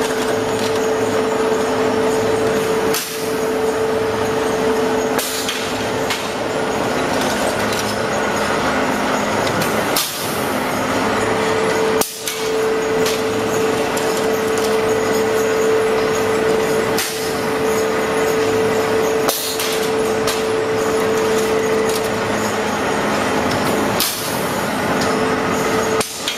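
Clay brick extrusion line running: a loud, steady machine din with a constant hum that cuts out for a few seconds now and then, broken every few seconds by sharp metallic clanks from the wire cutter and conveyor as the clay column is cut into green bricks.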